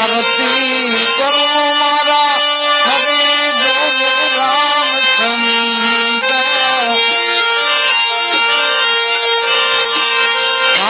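Instrumental folk music without singing: a reed instrument plays a melody over a steady held drone.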